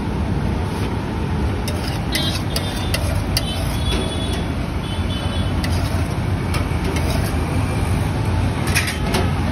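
Steady traffic rumble with a metal spatula scraping and tapping on a large flat griddle (tawa), giving scattered sharp clicks.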